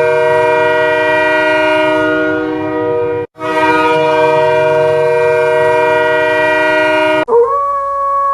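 Hockey arena goal horn, a multi-note air horn chord, blown in two long blasts with a brief break about three seconds in. Near the end it gives way to a different single tone that rises slightly and then holds.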